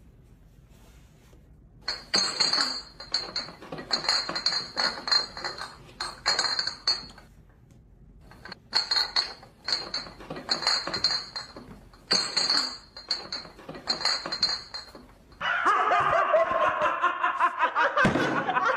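Rapid, dense clinking in three runs of a few seconds each, with a bright ringing edge. A louder sound with several pitched tones takes over for the last three seconds.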